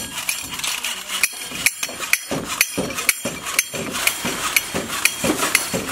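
Cymbal-clapping toy monkey clashing its small brass cymbals together over and over, about two clanks a second, each with a bright ringing tail.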